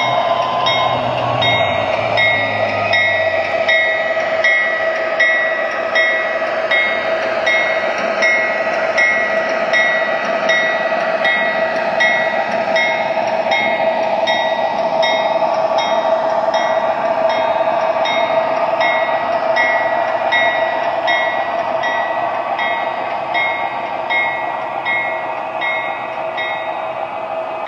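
Sound system of an MTH model BNSF diesel locomotive running: a locomotive bell ringing steadily, about two strokes a second, over a steady diesel engine drone and running noise, easing off slightly near the end as the model moves away.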